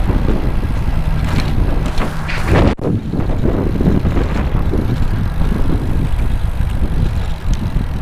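Wind buffeting the microphone while riding a bicycle downhill: a loud, steady rumble with rushing noise, which cuts out for an instant about three seconds in.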